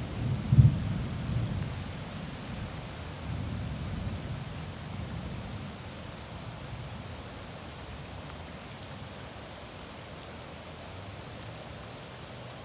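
Steady rain falling on a flooded street, with a low rumble of thunder that peaks about half a second in and rolls away over the next five seconds or so.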